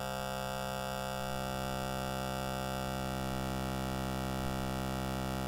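VCV Rack software emulation of the Buchla 132 waveform synthesizer, a sequencer-stepped oscillator, holding a steady pitched drone rich in overtones. It has a strange, pulsy sound.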